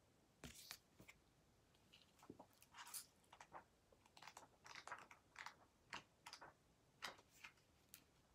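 Faint, scattered rustles and light clicks of hands handling paper, about fifteen short strokes at irregular intervals.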